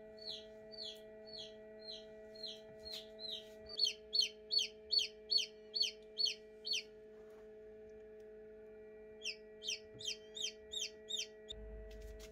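Newly hatched chicken chick peeping: a run of short, high, falling peeps, about three a second, that grows louder, stops about seven seconds in, and starts again for a couple of seconds after nine seconds. A steady low hum runs underneath.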